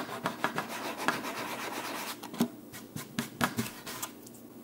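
Sanding sponge rubbed back and forth over a pine board, smoothing patches of dried wood filler. The scratchy strokes come thick and fast for about two seconds, then grow sparser and thin out near the end.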